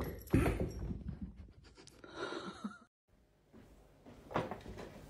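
Two cats play-fighting on a wooden floor: scuffling and a thump, with breathy noises. After a short pause, a couple of knocks.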